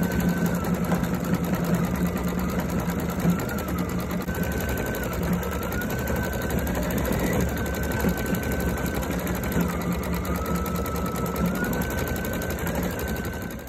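A small motor running steadily with a rapid mechanical clatter, its whine shifting up and down in pitch several times. It cuts off abruptly at the end.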